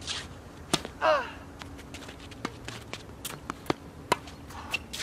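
Tennis serve struck with a sharp racket pop about a second in, followed at once by a short vocal grunt falling in pitch, the loudest sound. Then a rally of sharp racket hits and ball bounces on the hard court, several pops a second apart.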